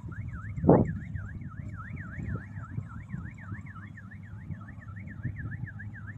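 An electronic warning alarm on a combine harvester warbles up and down, about three sweeps a second, over the low rumble of the running machine. A loud thump comes near the start.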